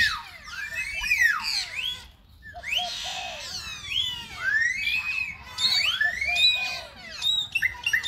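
Several birds singing at once: overlapping whistled notes that rise and fall in pitch, with a brief pause about two seconds in.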